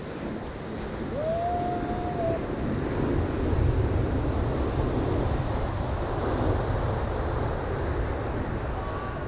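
Ocean surf breaking on a sandy beach, swelling to its loudest about four seconds in as a wave crashes, then easing to a steady wash.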